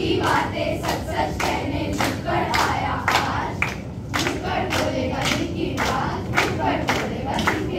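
A group of schoolchildren chanting together in unison while clapping a steady rhythm, about three claps a second.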